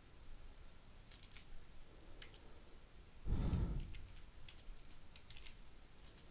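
Computer keyboard typing: a few scattered soft keystrokes as a password is entered. About halfway through there is a brief, louder muffled rush of noise.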